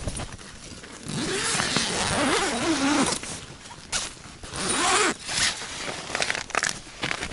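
Door zipper of a winter fishing tent being pulled open in two long zips, one starting about a second in and a shorter one around five seconds, with the tent fabric rustling in between.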